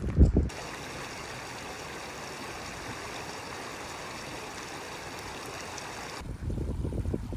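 Shallow mountain stream running over stones: a steady rush of water that starts about half a second in and stops abruptly about six seconds in. Loud low thumps come at the very start and again near the end.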